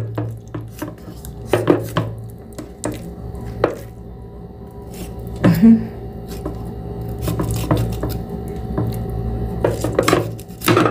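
Knife cutting raw chicken into pieces on a chopping board: irregular knocks of the blade against the board, over a steady low hum.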